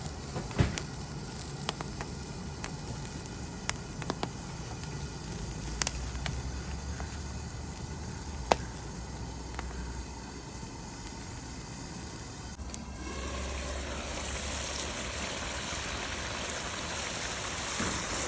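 Wood campfire crackling, with scattered sharp pops over a steady hiss. About two-thirds of the way through, the sound gives way to a steadier, brighter sizzling hiss from the karahi of chicken and tomatoes cooking over the fire.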